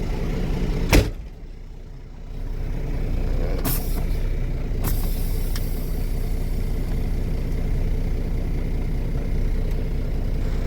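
Semi truck's diesel engine idling steadily, with a sharp loud knock like a door shutting about a second in and two lighter clicks a few seconds later.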